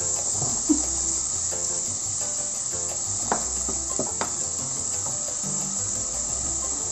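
A wooden spatula stirring ground pork in a nonstick frying pan, knocking sharply against the pan twice a little past the middle. A steady high-pitched hiss and soft background music run underneath.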